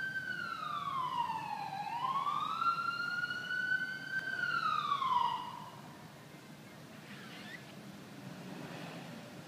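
Wailing siren from a passing emergency vehicle, its pitch sliding slowly down, back up, holding, then falling again before it cuts out about halfway through. After that only faint background noise remains.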